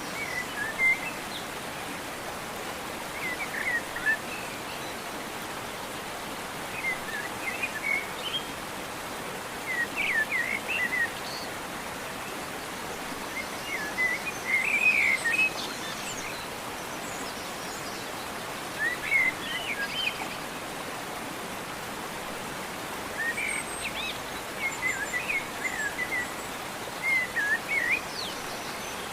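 Small birds chirping in short twittering phrases every few seconds over a steady, even rushing hiss.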